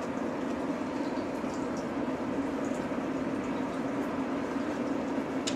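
Steady drone of the offshore supply vessel's engines and thrusters as it manoeuvres in the harbour, with a short sharp click near the end.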